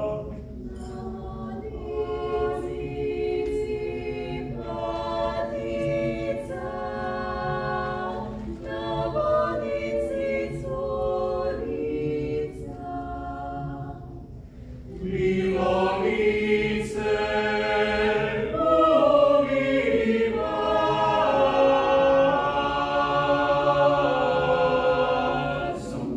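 Mixed choir singing a cappella: a harmonized choral arrangement of a folk song from the Bosnian Krajina, sung in phrases with short breaks between them. A little past the middle the singing grows louder and fuller.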